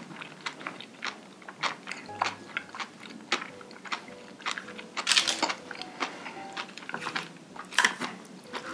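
Close-miked chewing of food: a steady run of wet mouth clicks, smacks and crunches, with louder ones about five seconds in and near the end.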